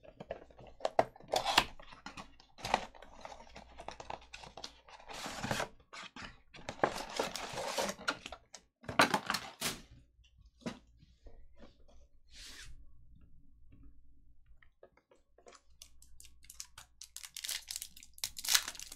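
A cardboard trading-card box being opened and its stack of foil card packs taken out and set down, with clicks, scrapes and rustles. Near the end, a foil card pack wrapper is torn open with a dense crinkling rip.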